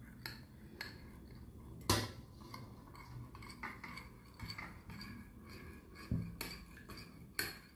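A metal spoon stirring milk and honey in a small bowl, clinking against the sides in scattered light taps, with one sharper clink about two seconds in and several more near the end.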